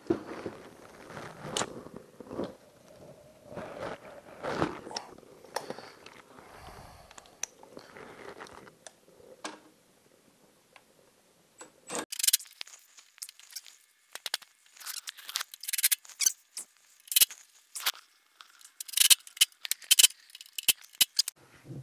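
Metal hand-tool and fastener noises while a motorcycle final drive housing is bolted onto its studs. There are scattered knocks and handling noises at first, then, about halfway through, a long run of sharp, rapid, irregular metallic clicks.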